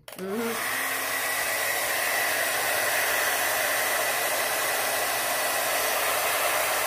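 Revlon handheld hair dryer switched on at high setting and running steadily: an even rush of blown air with a faint steady motor whine.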